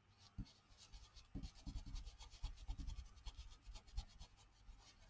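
Faint, scratchy rubbing of an ink blending tool worked over a stencil on paper, in many short, rapid strokes.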